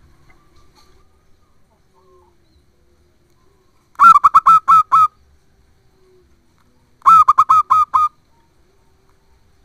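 Zebra dove (perkutut) cooing: two loud phrases of about five quick notes each, about three seconds apart.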